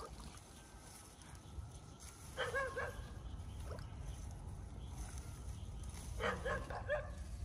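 A dog yapping in two quick bursts: three short yips about two and a half seconds in, then four more about six seconds in.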